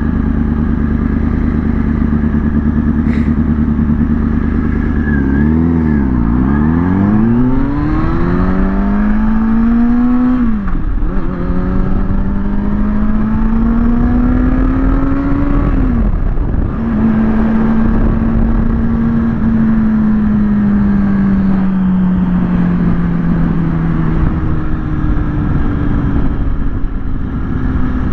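Kawasaki ZX-6R inline-four engine under way: it holds a steady note, dips and recovers about five seconds in, then pulls up in pitch with sudden drops at two upshifts, about ten and sixteen seconds in, before settling and falling slowly as the bike eases off.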